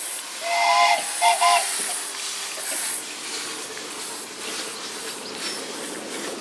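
Miniature live-steam locomotive hissing steam, with two short toots of its whistle about half a second apart near the start, then the running noise of the train moving along the track.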